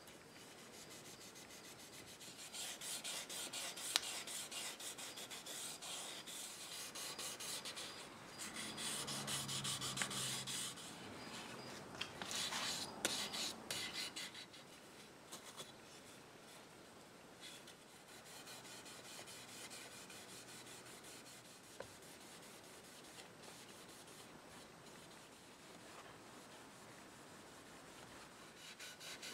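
Scotch-Brite pad rubbing out the lacquer finish on a clock case with wet rubbing compound, in quick back-and-forth strokes. The rubbing is strongest in the first half and turns fainter after about 15 seconds.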